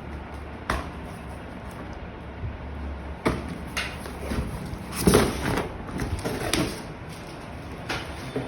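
Cardboard box and packaging being handled and opened: a series of knocks, taps and rustles, loudest about five seconds in, over a low steady hum.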